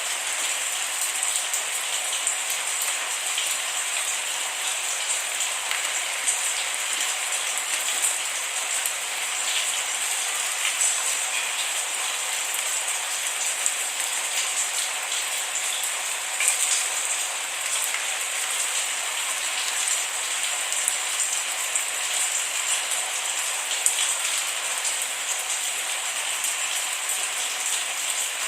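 Steady rain falling, an even hiss with many small drop ticks scattered through it and no thunder.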